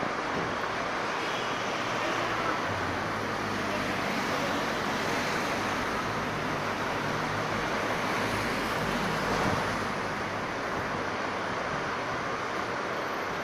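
Truck-mounted hydraulic crane's engine running, getting a little louder for several seconds in the middle as the boom lifts the load, over a steady street hum.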